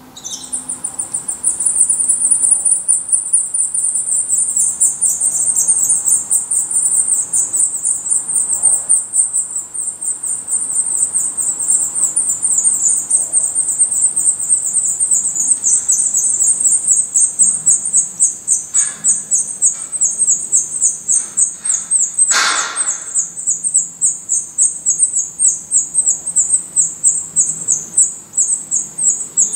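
Black redstart nestlings begging: a steady stream of rapid, high-pitched repeated calls that starts suddenly as the adult arrives with food. A brief louder noise breaks in about two-thirds of the way through.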